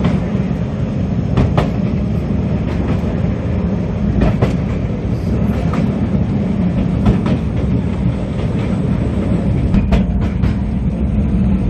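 Small tourist train running through the forest on its narrow track: a steady low rumble, with sharp wheel clacks over the rail joints every second or few.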